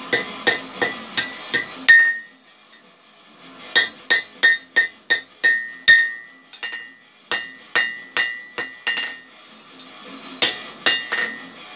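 A blacksmith's hammer striking a red-hot iron ring on a steel anvil. The ringing blows come about three a second, in four runs with short pauses between them.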